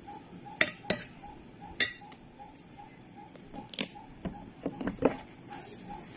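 A metal spoon clinking and scraping against a plate of fried rice: about seven short, sharp clicks at uneven intervals.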